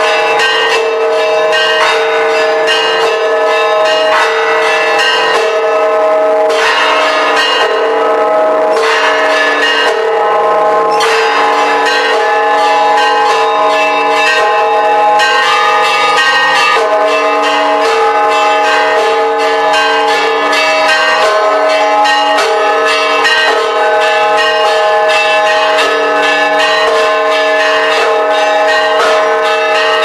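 Church bells of the Church of the Holy Sepulchre pealing: several bells struck in quick succession without a break, their ringing tones overlapping.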